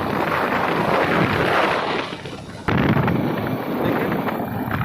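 Wind buffeting the microphone on a moving motorcycle, with road and engine noise underneath. It eases off briefly just after two seconds in, then comes back suddenly and loud.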